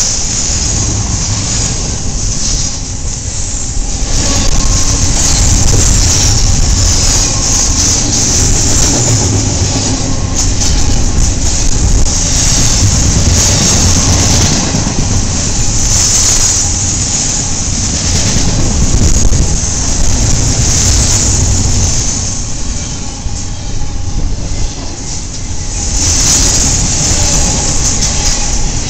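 Double-stack container train's cars rolling past at close range: a loud steady rumble of steel wheels on rail with a hiss over it, swelling and easing a little as the cars go by.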